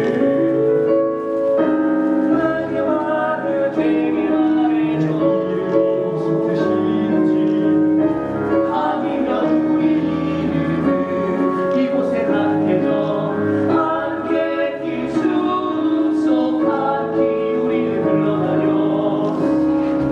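Live musical-theatre number: several voices singing together over piano accompaniment, with held notes and no break.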